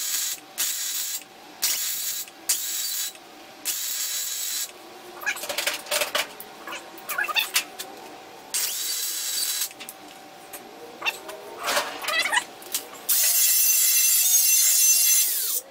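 Wire-feed (MIG) welder laying short tack welds on steel, each a burst of arc crackle lasting about half a second to a second, with clanks of handling between them. Near the end an angle grinder runs on the weld for about two and a half seconds, the loudest sound here.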